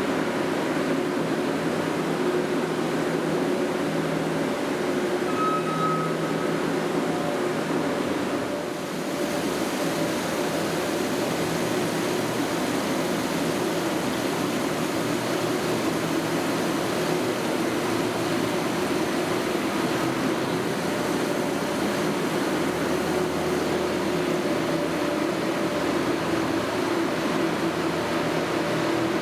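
New Holland skid-steer's diesel engine running steadily under work, with a brief dip in loudness about nine seconds in.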